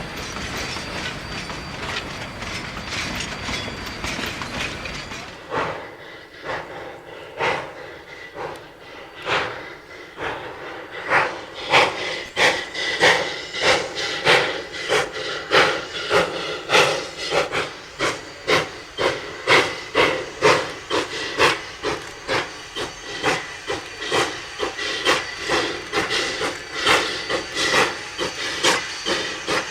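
Steady rolling noise for about five seconds, then the exhaust of the narrow-gauge 2-8-0 steam locomotive D&RGW No. 315: sharp steam chuffs, slow and spaced at first, quickening into a steady beat of under two a second as the engine picks up speed with its train.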